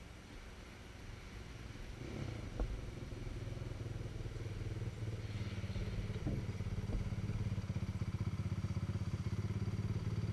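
Quad (ATV) engine approaching and getting gradually louder from about two seconds in, then running steadily with a fast pulsing beat. A single knock shortly after it starts to rise.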